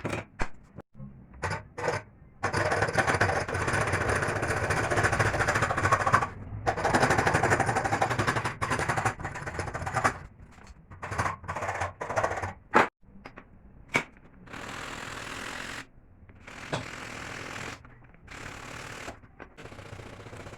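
A woodworking power tool runs against wood in stop-and-start stretches with a fast rattling pulse. The two longest stretches come in the first half, followed by short bursts and clicks, then quieter, hissier runs in the last third.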